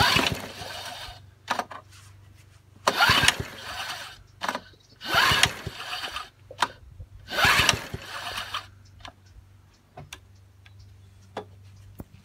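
Four pulls on the recoil starter of a Honda HR17 lawnmower, each a rasping second-long crank of the engine, followed by small clicks. The engine does not catch: the ignition switch is not yet set right.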